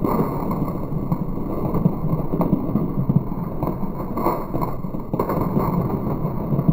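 Steady low road and tyre noise picked up under a moving car driving on a snowy, slushy road, with a few short clicks and crunches.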